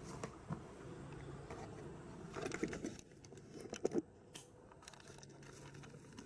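Handling noise as a camera is picked up and carried: rustling, scraping and clicking against the microphone, with two clusters of louder knocks about two and a half and four seconds in, over a faint steady low hum.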